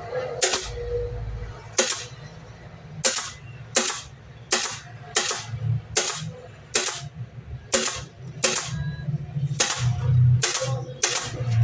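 Nails being driven into MDF drawer parts: about fourteen sharp cracks at uneven intervals, roughly one a second.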